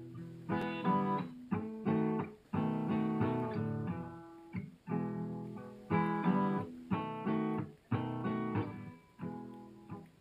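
Background music: acoustic guitar strumming chords, each struck sharply and left to ring.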